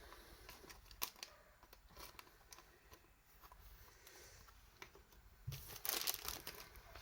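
Faint rustling and scattered light clicks of a Pokémon card being slipped into a plastic card sleeve by hand, with louder rustling of handling from about five and a half seconds in.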